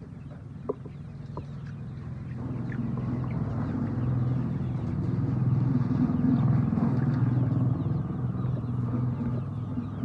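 A flock of chickens clucking, with a low engine hum that builds from about two seconds in, is loudest in the middle and eases off toward the end. The engine hum is the loudest sound.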